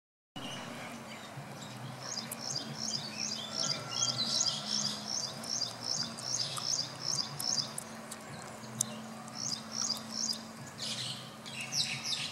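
A small bird chirping over and over, about two or three chirps a second, pausing and starting again, over the low steady hum of a garbage truck's diesel engine.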